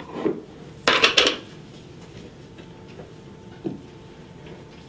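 A brief clatter of clinks, like glass or metal dishware knocking together, about a second in, and a single fainter knock later, over a low steady hum.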